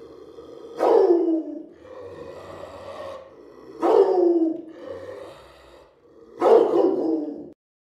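Rottweiler x German Shepherd dog giving an aggressive growl, broken by three loud barks that each drop in pitch, about three seconds apart. The sound cuts off suddenly near the end.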